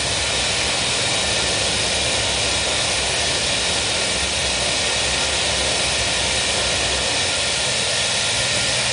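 Gas-fired glass furnace burners and blowers in a glassblowing workshop running with a steady, even rush of noise that does not break or change.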